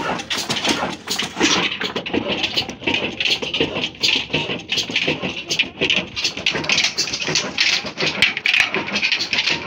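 Old stationary engine running a mustard-oil press through a flat belt and iron pulleys: a fast, uneven mechanical clatter of knocks and clicks, several a second.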